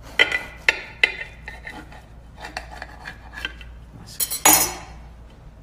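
Serrated bread knife cutting through a baked pie crust and striking the serving plate: three sharp clinks in the first second, lighter ticks after, then a louder clatter of the knife on the plate about four and a half seconds in.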